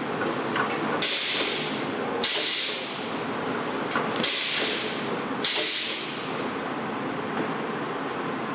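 Athena Combi shrink-wrapping machine (sealer with heat shrink tunnel) running with a steady mechanical noise. Four sharp hisses, each about a second long and fading away, come at uneven intervals of one to two seconds.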